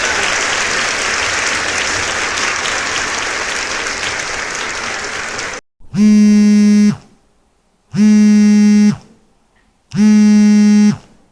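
Applause that cuts off abruptly, followed by three identical buzzer blasts, each a flat, steady tone about a second long, two seconds apart.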